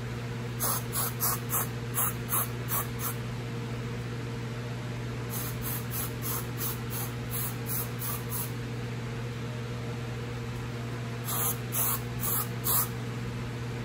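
CHI Helmet Head aerosol hairspray sprayed onto curled hair in quick short spritzes, about three a second, in three runs; the middle run is fainter.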